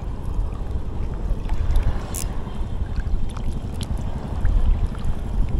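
Wind buffeting an action camera's microphone: a steady, uneven low rumble, with a brief hiss about two seconds in and a few faint ticks.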